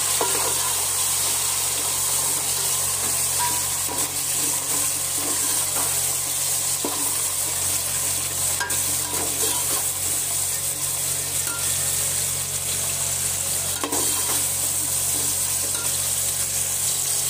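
Onions, tomatoes and green chillies sizzling steadily as they fry in hot oil in a metal pot, stirred with a metal spoon that scrapes and clinks against the pot a few times.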